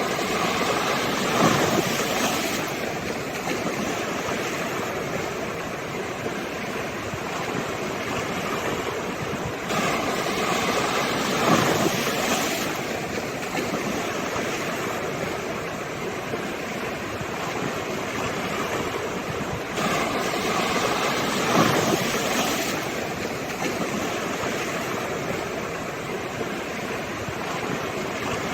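Sea waves breaking and washing up on the shore, a surge about every ten seconds over a steady rush of surf.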